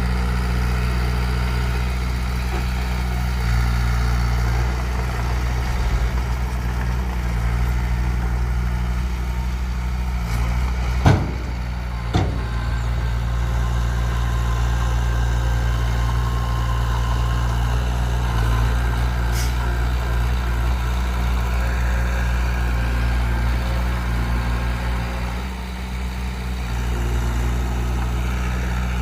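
Heavy construction machine's engine running steadily, with two sharp knocks about a second apart midway through.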